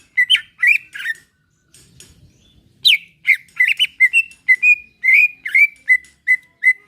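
Cucak ijo (green leafbird) singing: quick runs of short whistled notes near one pitch, many sliding upward. There is a burst in the first second, a pause, then a longer run of about three or four notes a second.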